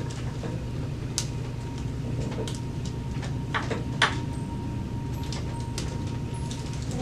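A few short, soft knocks and clicks, the strongest about four seconds in, over a steady low hum.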